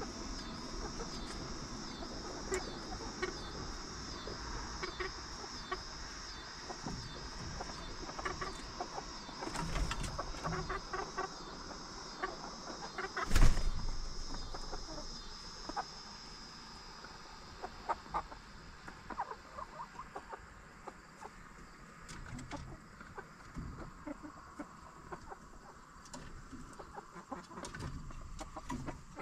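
Backyard hens clucking softly and pecking as they forage, with a steady high pulsing chirp, about two a second, behind them that fades out about two-thirds of the way through. A single loud knock comes about halfway through.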